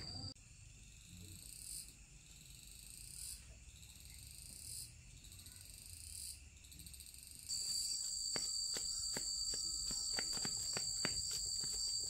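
Insects calling: faint rising high calls repeat about every second and a half. About two-thirds of the way in they give way suddenly to a louder, steady, high shrill insect drone with scattered sharp clicks.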